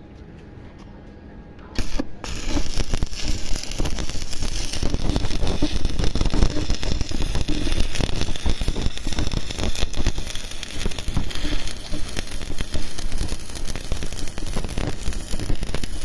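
Electric arc welding on mild steel plate: the arc strikes about two seconds in, breaks for a moment, then re-strikes and burns with a steady, dense crackle and sizzle.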